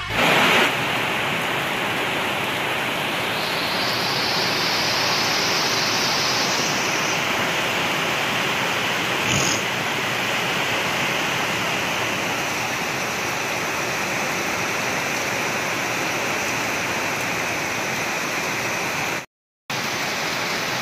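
Heavy rain pouring steadily onto palm and banana leaves and a wet road, a dense even hiss that breaks off briefly near the end.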